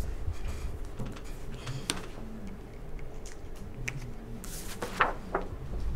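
Scattered light clicks and rustles of a pen and a glossy photo print being handled on a desk as it is signed, with a sharper tap about five seconds in.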